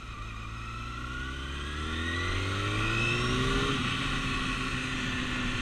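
Motorcycle engine accelerating, its pitch rising steadily for about three seconds, then dropping and levelling off as the bike shifts up a gear.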